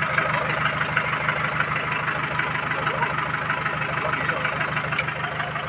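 Mahindra 585 tractor's four-cylinder diesel engine running steadily with an even, fast pulse.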